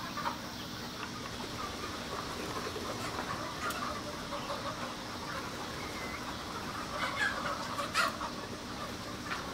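A large flock of broiler chickens packed in a chicken house, a continuous mass of clucking and chatter over a steady low hum, with a brief louder sharp sound about eight seconds in.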